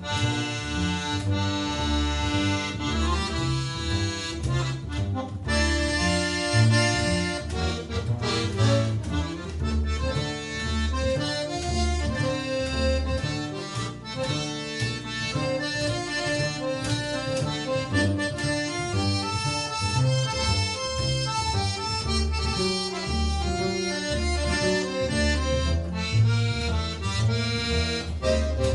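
Live instrumental music: an accordion plays held melody notes and chords over a bass line.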